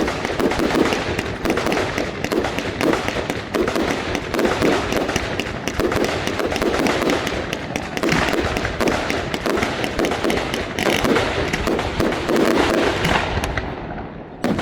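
Fireworks display: dense, continuous crackling and rapid bangs from many bursting shells, thinning out and getting quieter near the end.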